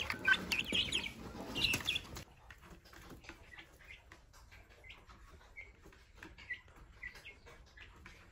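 Young chickens chirping and clucking as they feed from plastic-bottle feeders, with scattered light clicks of pecking. Loud and close for the first two seconds, then fainter short chirps after a cut.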